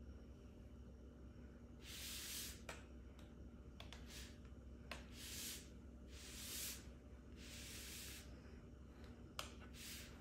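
Faint swishing strokes of a spatula smoothing soft cream-cheese filling level in a pan, about five strokes, with a few light clicks in between.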